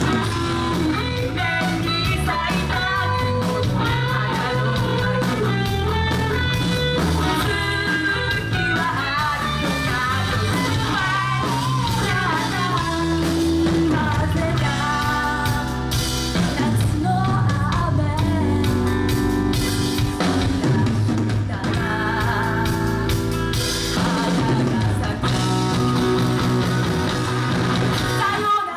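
Live rock band playing a song: a singer over guitars, bass and drum kit.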